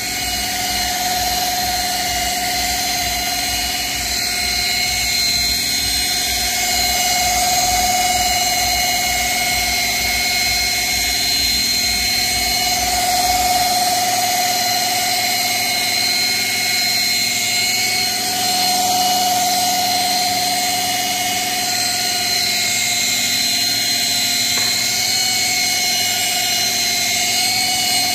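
Flex rotary polisher running at a constant speed with a black foam pad on a painted panel, giving a steady motor whine. A low rumble beneath the whine drops away about halfway through.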